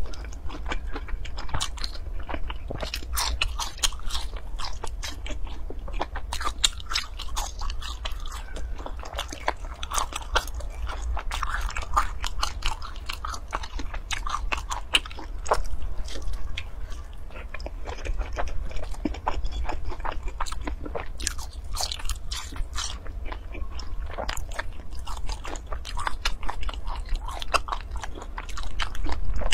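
Close-miked chewing of a crisp-crusted filled pastry, with many small crackly crunches throughout.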